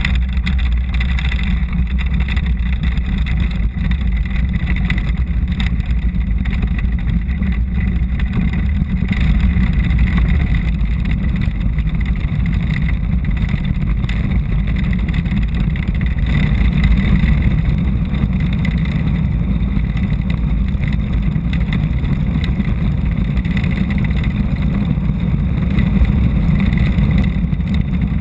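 Steady low rumble of a land yacht rolling over cracked, dry lakebed, picked up through a camera fixed to its wooden hull and mixed with wind on the microphone.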